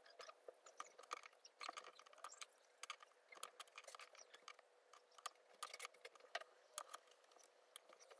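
Scissors snipping into a sewn fabric seam allowance, a quick irregular run of faint snips, as the curves are clipped and notched.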